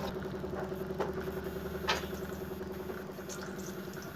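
Steady low motor hum with a faint fast crackle, and two small clicks about one and two seconds in.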